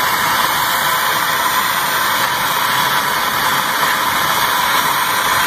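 Handheld torch flame burning with a steady hiss while it heats a rusted-on torsion bar key to free it.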